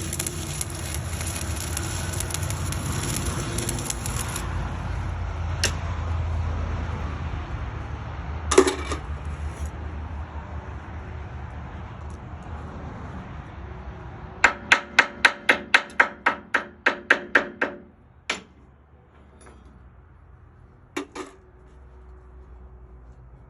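Stick-welding arc with 7018 rod crackling and hissing, stopping about four seconds in. Then single hammer blows on steel, and a quick run of about sixteen ringing blows, roughly five a second, with a couple more strikes after.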